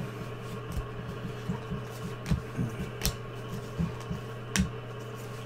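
A stack of trading cards handled by gloved hands as they are flipped through one by one: soft, irregular taps and clicks, a couple of them sharper, over a steady low hum.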